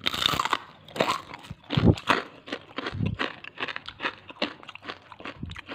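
A person biting into and chewing a crisp grasshopper rempeyek, a fried cracker studded with fried grasshoppers. A bite at the start, then a run of crunching chews, about three a second.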